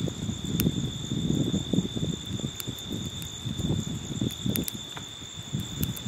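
Crickets trilling steadily in one high continuous tone, over an uneven low rumble of wind on the microphone, with a few short sharp clicks.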